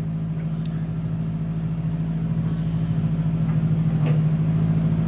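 Forklift engine running steadily, growing slightly louder, as the forks are lowered.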